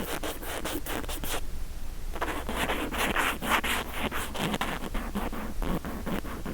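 Cotton swab rubbing against the microphone side of a Mu6 Lifelike2 binaural recording earphone's shell, heard as rapid scratchy strokes right on the mic, about six a second. The strokes pause briefly about a second and a half in, then start again and keep going.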